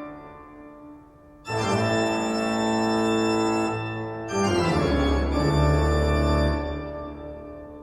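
Music of slow, sustained organ chords, each held for a few seconds and dying away. New chords come in about a second and a half in and again past four seconds.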